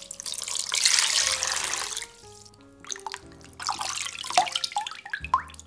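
Water poured over a raw whole chicken in a bowl, a steady rushing pour for about two seconds. Then splashing and dripping as the wet chicken is lifted and handled over the water. Soft background music plays underneath.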